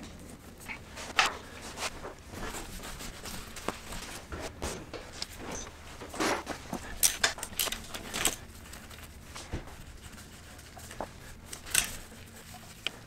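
Irregular light clicks, taps and rustles of hand tools and parts being handled on a dirt bike's engine, with sharper clicks about six to eight seconds in and again near the end.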